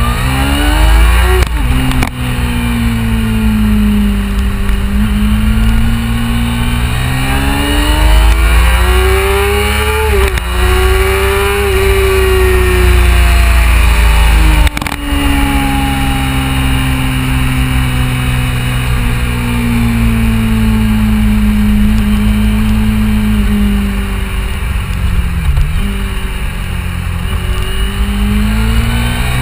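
Motorcycle engine running under way, its pitch climbing and falling as the bike speeds up and slows down, over a steady low wind rumble. Sharp clunks about two seconds in and near the middle: the visor-mounted camera knocking as the bike goes over broken-up bitumen.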